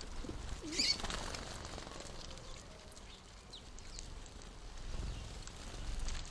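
House sparrows chirping, with one louder burst of chirps about a second in and a few fainter chirps later. A low rumble swells near the end.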